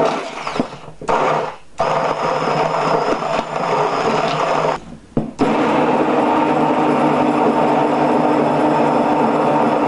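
Electric immersion hand blender running in a bowl of liquid cake batter, puréeing it. It is loud and steady in pitch, stops briefly a few times in the first five seconds, then runs unbroken.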